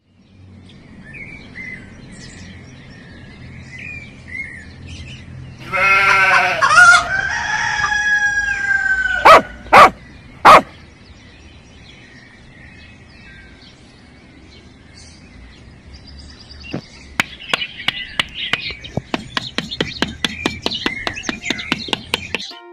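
A rooster crowing about six seconds in, against small birds chirping. Three sharp, loud knocks follow, and near the end comes a rapid run of clicks, about three or four a second, with more chirping.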